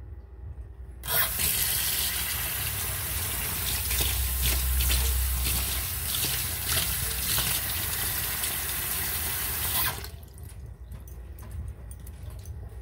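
Kitchen tap water running into a stainless steel sink onto fish, turned on abruptly about a second in and shut off near the end.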